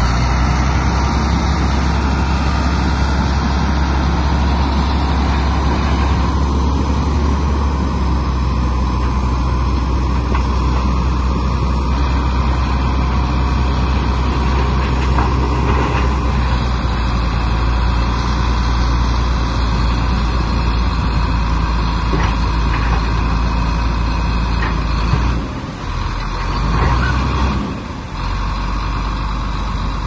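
Bulldozer's diesel engine running steadily with a deep drone, easing off briefly twice near the end.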